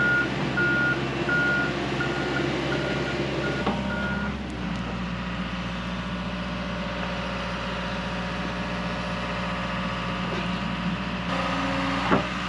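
Excavator's diesel engine running steadily while its warning alarm beeps about twice a second for the first four seconds. About eleven seconds in, the engine note changes as the machine works.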